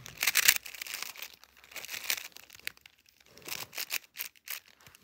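GAN 11 M Pro magnetic 3x3 speedcube being turned by hand, its layers clicking in short bursts of quick turns with brief pauses between.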